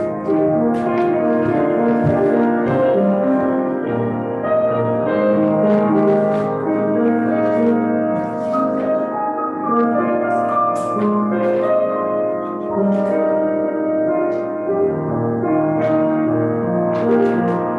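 Slow instrumental music played on a keyboard: held chords under a melody line, the notes sustained rather than dying away.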